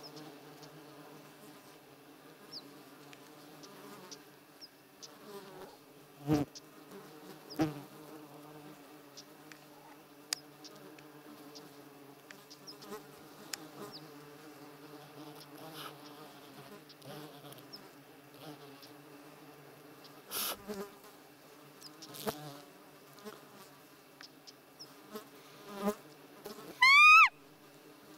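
Horseflies buzzing close by, a steady droning hum with a few soft knocks. Near the end comes a short, loud, high squeaky call that glides in pitch.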